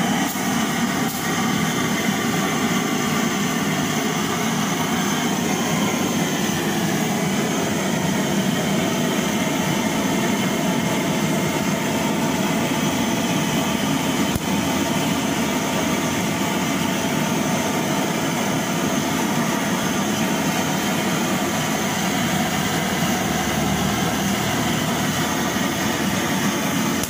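Copper blowtorch burning steadily with an even rushing flame, held against a goat carcass to singe off its hair.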